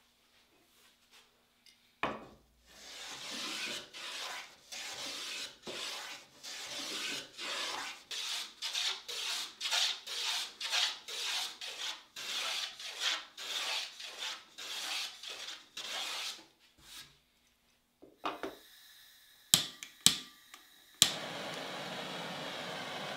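Hand abrading of wood: rhythmic back-and-forth rubbing strokes, about two a second, keeping up for some fourteen seconds. Near the end come a few sharp knocks, then a steady hiss starts.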